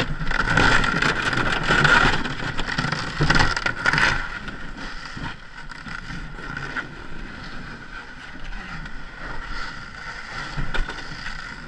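Ice canoe travelling on the river, with wind buffeting the microphone; irregular knocks during the first four seconds, then a steadier, quieter run.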